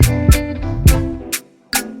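Background music: an upbeat reggae/afrobeat-style track with plucked guitar and a steady drum beat, cutting out briefly near the end.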